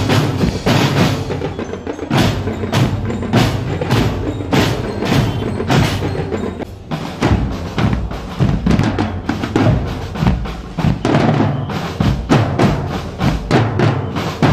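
Marching drum line of snare drums, multi-tenor drums and bass drums, with hand cymbals, playing a fast drum-corps cadence. There is a brief lull about seven seconds in.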